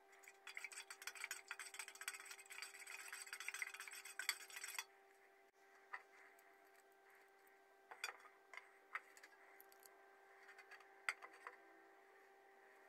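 A metal spoon stirring table salt into water in an enamel tray to make an electrolyte: rapid scraping and clinking for about four seconds that stops abruptly. Then a few light clicks and taps as metal rods and alligator clips are handled, over a faint steady hum.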